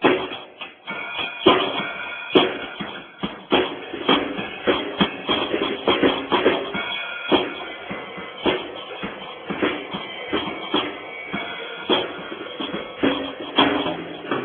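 Drum kit played solo: a busy, uneven run of hits on the drums, bass drum and snare among them.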